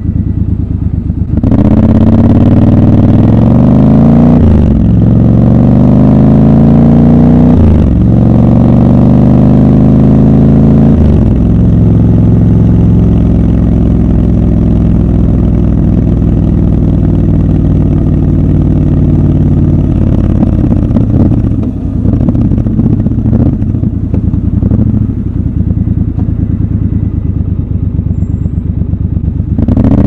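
Triumph Scrambler 1200 XC's 1200 cc parallel-twin engine idling, then pulling away about a second and a half in and revving up through the gears, with three upshifts a few seconds apart. It then runs at a steady cruise, with the throttle eased off briefly a few times in the second half.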